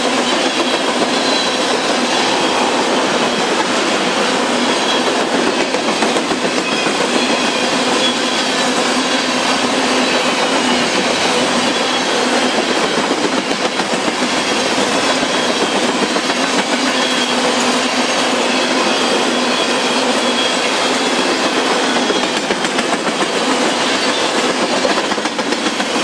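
Tank cars of a CSX ethanol train rolling steadily past: steel wheels rumbling and clattering on the rails, with thin high wheel squeals now and then.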